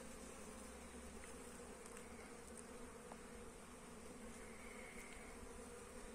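Honeybees flying in and out at a hive entrance, a faint steady buzzing hum of foragers arriving at the landing board.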